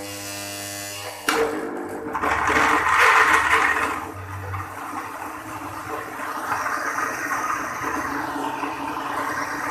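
Electric countertop blender chopping persimmon pieces in water. A steady motor whine jumps about a second in to a loud churning as the blades break up the fruit chunks, which is loudest for the next couple of seconds. It then settles to a steadier whir as the fruit turns to a smooth purée.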